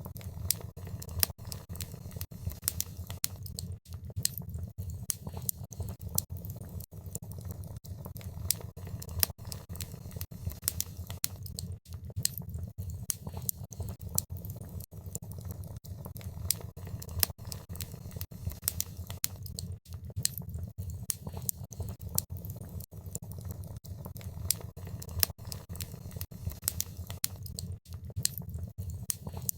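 Wood fire burning in a fireplace, crackling and popping irregularly over a steady low rumble of flames.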